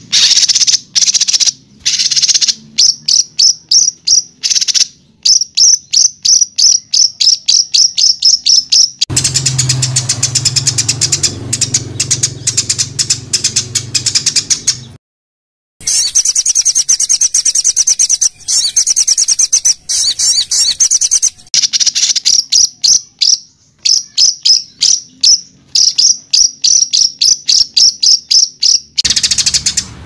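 Recorded songbird song used as 'masteran' training material for cage birds: fast runs of sharp, high-pitched repeated notes, the rapid 'tembakan' bursts. About nine seconds in comes a rougher, noisier stretch with a low hum beneath it. After a brief silence near the middle, dense high trills run before the quick repeated notes return.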